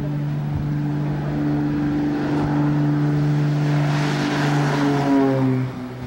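Twin-engine propeller aircraft at high power on its takeoff run: a steady engine drone that grows louder and drops in pitch as the plane passes, about five seconds in.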